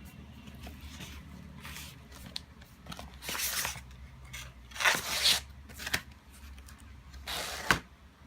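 Packaging being handled during an unboxing: several short rustling, scraping swishes, the loudest about five seconds in, and a sharp click near the end.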